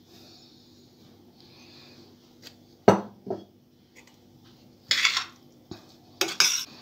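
Metal spoon knocking and scraping against a metal bowl while tossing bulgur salad: two clinks about three seconds in, then a few short gritty scrapes near the end.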